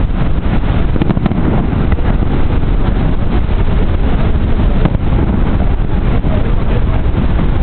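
Fireworks display: scattered sharp pops of shells bursting, heard under a loud, steady low rumble of wind buffeting the microphone.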